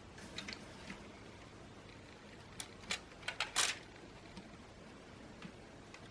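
Light plastic clicks and clatter from a Lego Technic model being handled: a few soft clicks, then a quick run of sharper, louder clicks about three seconds in, over a steady faint hiss.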